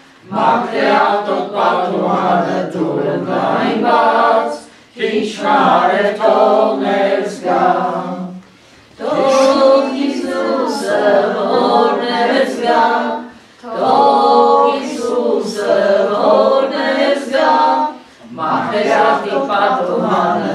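A group of voices singing a hymn without accompaniment, in phrases of about four seconds with short breaks between them.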